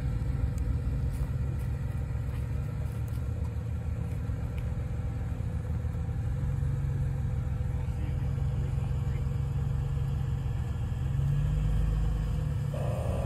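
Off-road vehicle's engine running at low speed, a steady low rumble that grows a little louder about eleven seconds in.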